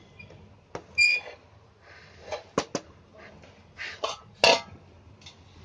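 A string of sharp clinks and knocks of steel kitchenware: a metal spoon or spatula against a steel kadhai of cooked dough, and its lid being handled. One clink about a second in rings briefly, and the loudest knock comes about four and a half seconds in.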